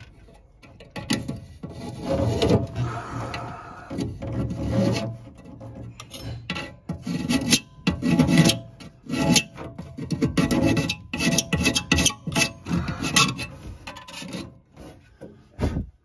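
Hand tool scraping and rasping in short, irregular strokes against the metal flue hood of a Potterton Kingfisher MF boiler, clearing away the remains of the old split fan seal.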